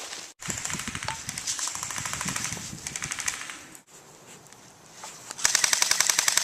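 Airsoft guns firing on full auto: a long rapid string of sharp, thin snaps, a pause of about a second and a half, then a louder burst near the end.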